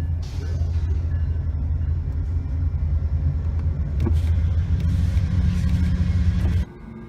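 A loud, steady low rumble that cuts off suddenly near the end.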